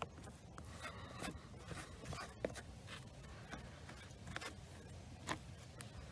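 Plastic spatula scraping and smearing Bondo body filler across a dashboard frame, in faint, short, irregular strokes.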